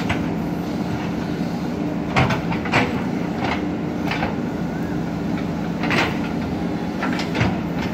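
Dozer's diesel engine running steadily, with irregular sharp knocks of the working machine about once a second.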